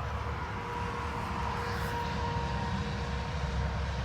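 Steady machinery drone: a constant low rumble with a faint steady whine over it.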